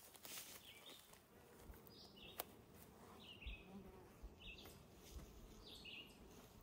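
Honeybees buzzing faintly around a freshly opened nuc box and hive, a steady low hum.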